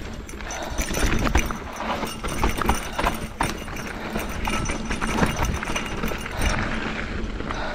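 Esker Japhy single-speed mountain bike riding fast down a dirt singletrack: tyres rolling and crunching on loose dirt, with a busy run of knocks and rattles from the bike over bumps, thickest about a second in.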